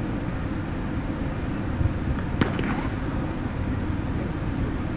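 Outdoor ambience at an athletics stadium: a steady low rumbling noise, with one brief, faint higher sound that falls in pitch about two and a half seconds in.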